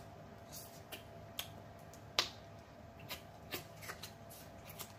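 Close-miked eating of snow crab legs: a string of short, wet mouth smacks and clicks as crab meat is sucked from the shell. The loudest is a sharp click about two seconds in.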